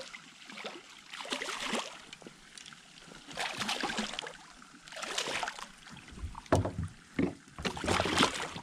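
A hooked largemouth bass thrashing and splashing at the water's surface during the fight, in several short, irregular bursts. A few low thumps come in the second half as the fish is brought alongside the kayak.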